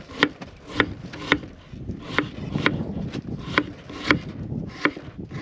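Chef's knife chopping through a potato onto a wooden cutting board, a sharp knock about twice a second.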